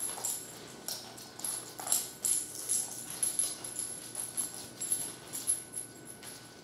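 Dogs' claws clicking and tapping on a hardwood floor as they walk and trot about: light, irregular clicks, a few a second.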